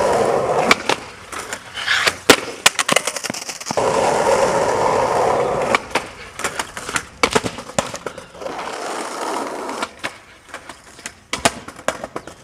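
Skateboard wheels rolling on asphalt, broken three times by clusters of sharp clacks: the tail popping, the board knocking and landing, and the board clattering across the pavement after bailed tries at jumping a railing.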